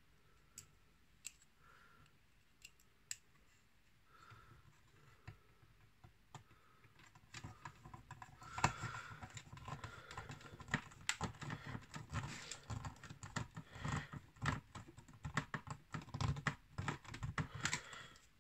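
Hands handling plastic model-kit parts: a few scattered light clicks at first, then from about seven seconds in a dense run of clicks, taps and rubbing of plastic against plastic.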